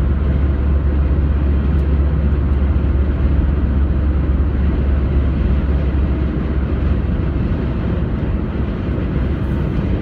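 Steady low rumble of a car at highway speed, road and engine noise heard from inside the cabin.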